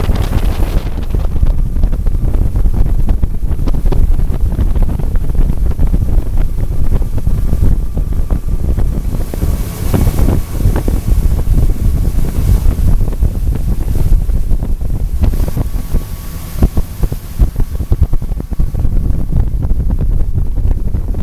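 Heavy wind buffeting the microphone on a boat under way, with the boat's motor and water noise underneath. The buffeting eases briefly about two-thirds of the way in.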